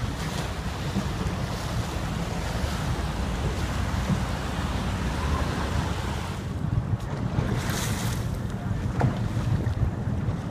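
Wind buffeting the microphone, a constant low rumble over water sloshing around a moving gondola. The hiss thins out about two thirds of the way in.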